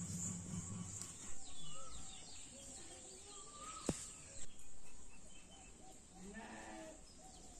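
Rural yard ambience: many short bird chirps over a steady high hiss, a few sharp knocks, and livestock bleating once about six seconds in.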